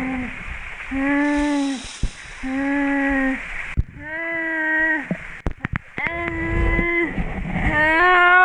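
An injured young woman moaning and crying out in pain after a fall from a waterfall, five drawn-out vocal cries in a row that rise in pitch toward the end. A waterfall and its stream rush in the background.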